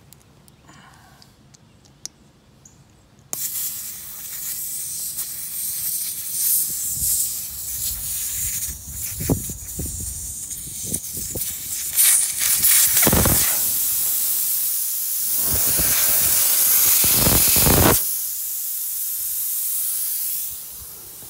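Air hissing out of a Land Rover's tyre valve as the tyre is let down. The hiss starts suddenly about three seconds in, swells and fades in strength, and eases off near the end.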